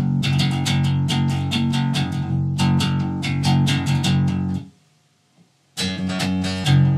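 Electric bass played fingerstyle: a fast, repeating riff of sharply plucked notes. It stops about two-thirds of the way in, there is about a second of silence, and then it starts again.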